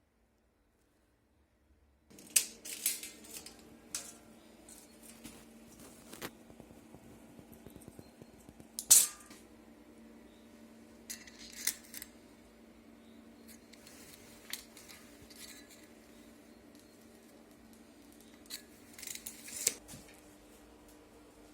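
Scattered light clicks and clinks of small hard objects being handled, over a faint steady hum that starts about two seconds in. The loudest click comes about nine seconds in, with small clusters of clicks a few seconds after the start and near the end.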